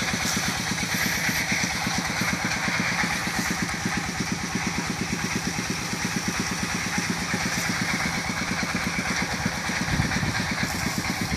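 A small engine idling steadily with an even, rapid chug.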